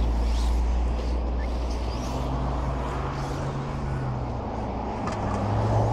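Radio-controlled race trucks running on a dirt track, their motors faintly whining, over a loud low steady drone that steps up in pitch about two seconds in and back down near the end.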